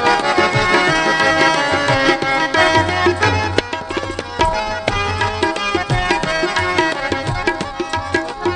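Harmonium playing a melody of held reed notes over tabla accompaniment, the tabla's deep bass strokes sounding more strongly from about three seconds in.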